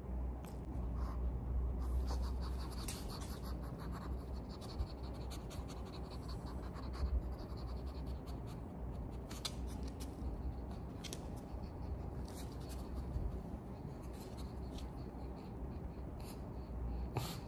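A pug moving about on a hard floor: scattered light clicks and scratches of its claws on the floor, with sniffing, over a steady low rumble.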